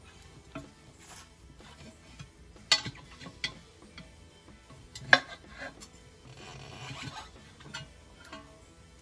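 Steel pry bar clinking against an alloy wheel rim as a tire bead is levered off by hand: sharp metallic clinks about three and five seconds in, then a short scraping rub of the tire on the rim.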